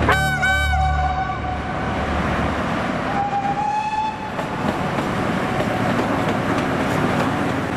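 Locomotive horn sounding two blasts, the first about a second and a half long, the second shorter and a little higher about three seconds in, over the steady rumble of a train passing.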